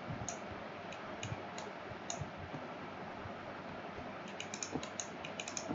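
Light, scattered clicks of a computer keyboard and mouse over a faint steady hiss: a few single clicks at first, then a quicker run of clicks near the end.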